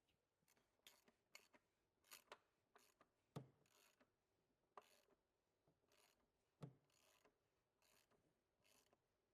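Faint, irregular short scrapes and clicks of metal parts being worked, with two sharper knocks a few seconds apart, as the oil filter is refitted.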